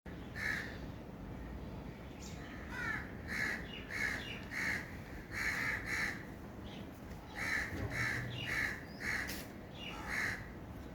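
A crow cawing repeatedly, about ten short caws in groups of two or three, with another bird's short falling chirps in between.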